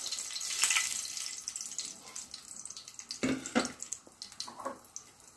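Whole spices (cardamom pods and cinnamon) sizzling in hot oil in a frying pan. The high hiss fades during the first second or so, leaving scattered small crackles.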